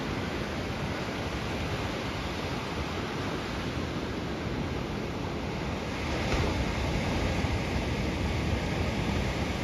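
Steady rush of ocean surf and wind at the shore, growing a little louder about six seconds in.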